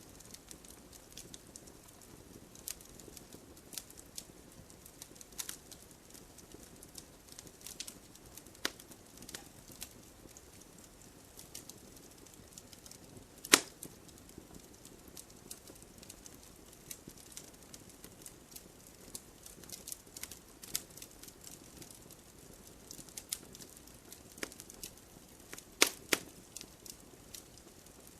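Campfire crackling: irregular sharp pops and snaps over a faint steady hiss, with one loud pop about halfway through and two close together near the end.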